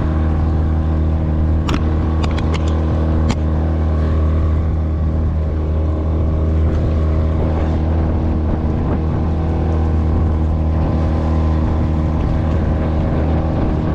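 Motorboat engine running at a steady speed, a constant hum with a few sharp clicks about two to three seconds in.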